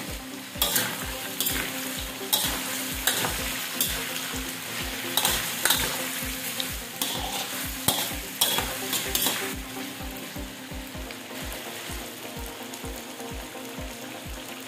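Diced potatoes, carrots and red bell pepper sizzling in hot oil in a stainless steel wok, with a metal spatula scraping and clattering against the pan as they are stirred, for roughly the first nine seconds. After that only the steady sizzle of the frying continues.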